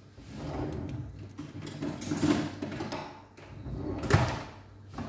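Off-screen kitchen handling sounds: irregular rustling, sliding and knocking, as of a drawer or container being worked, with louder bursts about two seconds in and about four seconds in.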